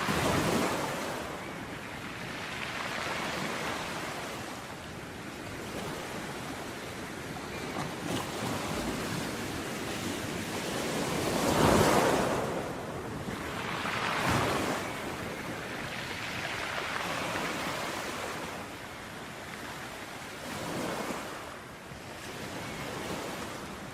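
Ocean waves breaking on a beach, each wave swelling into a hiss and fading every few seconds, the loudest break about halfway through, with light wind.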